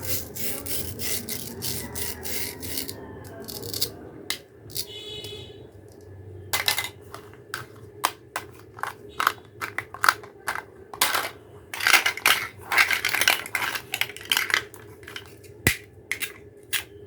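Hard plastic toy food pieces and toy utensils being handled and cut: a quick run of sharp plastic clicks and taps, thickest in the second half, with a brief high tone about five seconds in.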